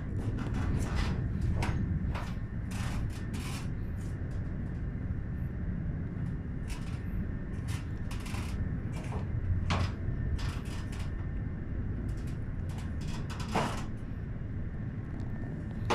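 Irregular rustles and clicks of hands handling material, over a steady low rumble.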